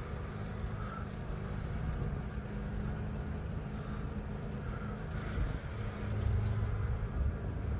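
Honeybees humming steadily around an opened hive, over a low rumble.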